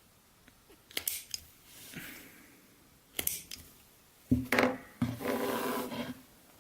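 Hand cutting tool snipping through layered leather and fabric: a handful of sharp clicks, then about a second of rasping cut near the end.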